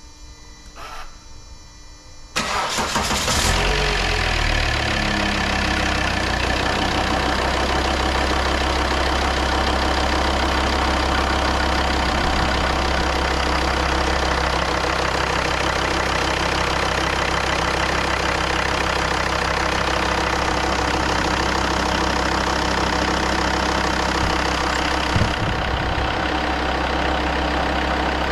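Volvo XC90 D5 five-cylinder turbodiesel cranking and catching about two seconds in, the revs flaring briefly then settling into a steady idle. It is the first start after a new timing belt and water pump, and the engine runs smoothly, described as sounding perfect.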